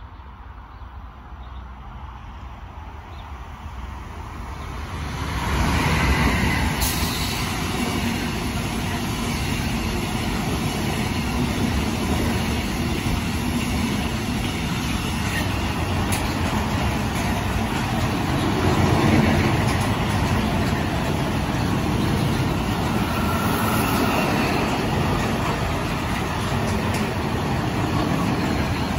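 A long freight train of container and intermodal flat wagons approaching and then passing close by. It grows louder over the first few seconds and jumps sharply about five seconds in as the train reaches the spot. After that the wheels on the rails make a steady, loud running noise while the wagons roll past.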